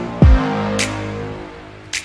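Electronic background music with crisp hits about every half-second. A deep sweep falls in pitch about a quarter-second in, and the music fades out near the end.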